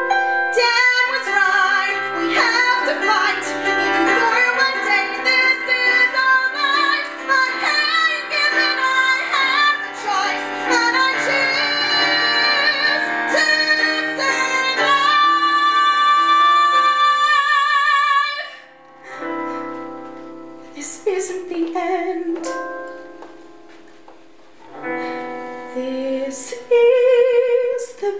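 A woman singing a musical theatre ballad with vibrato over keyboard piano accompaniment, ending on a long held note about eighteen seconds in. Quieter piano follows, and voices start singing again near the end.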